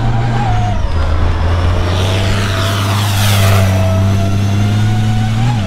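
Banks race semi truck's engine running hard at steady high revs with a loud whine, and a falling sweep in the whine about two seconds in as it passes.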